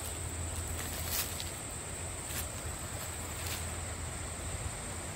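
Steady, high-pitched insect chorus in the woods, one unbroken buzz, over a low hum, with a few faint clicks about a second apart.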